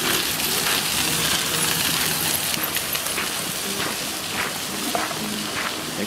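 Steady rush of flowing water from a nearby stream or rapids.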